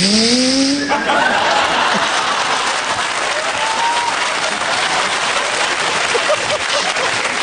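Studio audience applauding, the clapping swelling about a second in and holding steady. A voice glides upward in pitch just before the applause swells.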